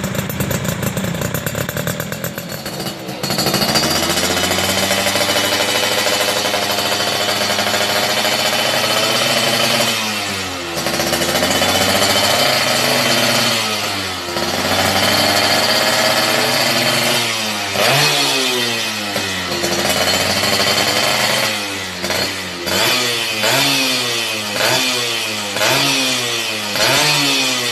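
Yamaha F1ZR's single-cylinder two-stroke engine through a racing exhaust, being revved hard. It is held high for long stretches and drops back and climbs again several times, then gives quick rev blips about once a second near the end.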